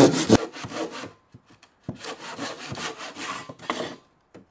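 Handsaw cutting through a softwood bottom plate of a timber wall frame with quick back-and-forth rasping strokes. The strokes pause briefly about a second in, start again, and stop about half a second before the end.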